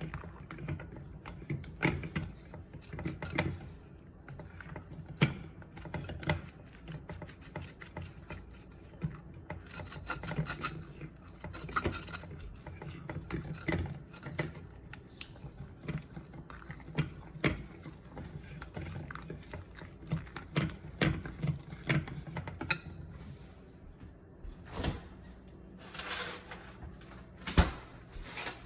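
Kitchen food preparation: utensils scraping and knocking irregularly against wood and dishes, over a steady low hum.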